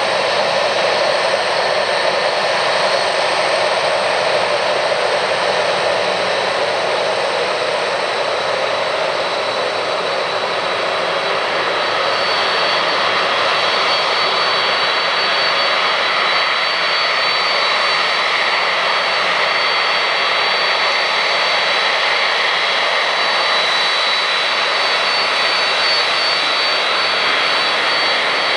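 Boeing 767 airliner taxiing, its twin turbofan engines running steadily with a high whine over the rush of jet noise. A second whine tone joins about twelve seconds in.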